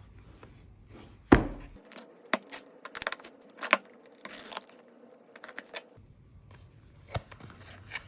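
Product packaging being handled and opened: a loud knock about a second in, then a string of clicks and taps with a brief tearing rustle.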